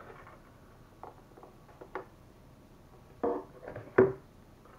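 Cardboard webcam packaging being handled: an inner box slid out of its outer sleeve, with soft rubs and small ticks, then a short rasp and a sharp knock in the last second and a half.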